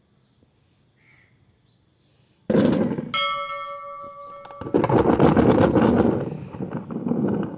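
Handful of rubber bouncy balls dropped into a clear plastic tub, starting about two and a half seconds in, bouncing and clattering against the plastic and against each other in a dense rattle. Among the first impacts, a clear bell-like ring sounds for about a second and a half.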